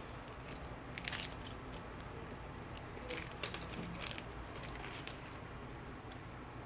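Faint, scattered clicks and light scrapes of small phone parts and repair tools being handled on the work surface.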